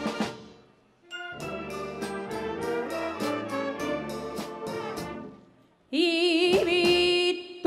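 Wind band of brass, saxophones and percussion playing: a chord dies away, then a rhythmic instrumental passage swells and fades. About six seconds in, a woman sings a loud held note with wide vibrato into a microphone, the loudest sound here.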